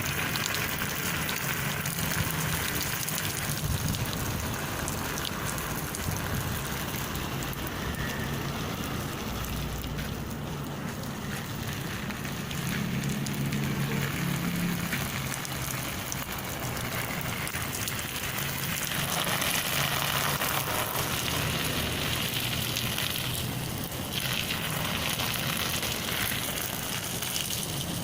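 Steady patter of water falling like rain onto a surface.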